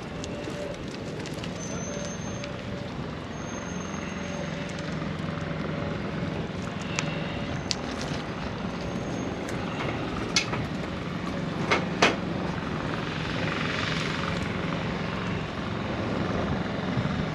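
A steady low engine drone, with a few sharp clicks past the middle.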